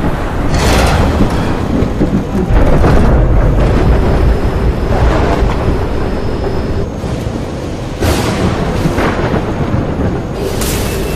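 Thunderstorm in a film soundtrack: a continuous heavy rumble of thunder broken by about five sharp thunderclaps a couple of seconds apart. A faint thin high tone sounds for a few seconds in the middle.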